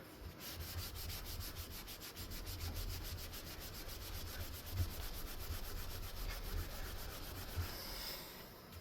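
Cleaning wipe scrubbed hard back and forth on a veneered ceiling fan blade, a steady quick rubbing as caked-on kitchen grease and dust are worked off.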